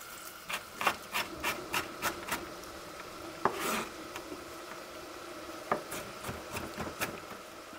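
Chef's knife slicing through an onion onto a wooden chopping board: a run of quick knocks, about three a second, for the first couple of seconds, a pause, then another run near the end.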